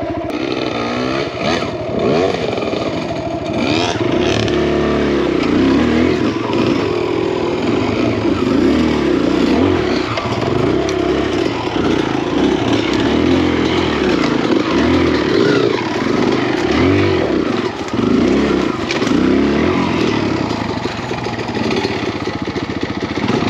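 Dirt bike engine working up a steep rocky climb, the revs rising and falling over and over as the throttle is blipped, with clatter from the bike over the rocks. It runs more evenly for the first few seconds before the repeated revving begins.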